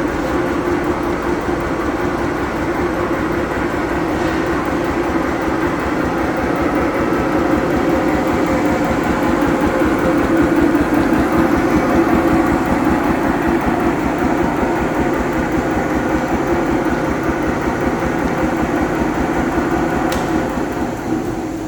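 Schulz 60 cfm piston air compressor with a 15 hp motor running steadily: a constant hum over a fast, even pulsing beat. The seller describes it as working perfectly after an overhaul.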